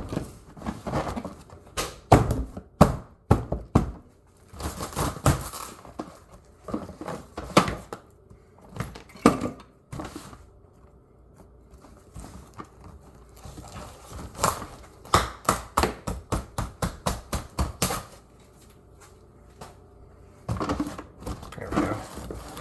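Packaging being wrestled open by hand: crinkling and tearing with many sharp clicks and knocks, in bursts separated by short pauses.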